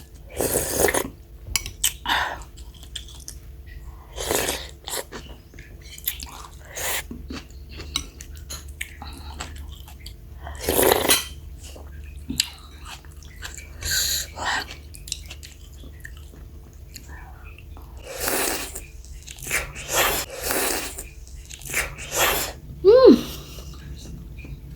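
Bakso (Indonesian meatball soup) being eaten: chewing in irregular bursts, with a spoon knocking on the bowl now and then. A brief pitched cry, rising then falling, near the end.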